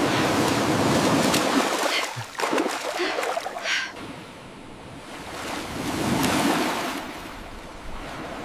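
Rushing water noise, like waves washing in: loud at first, dying down, then surging again about six seconds in.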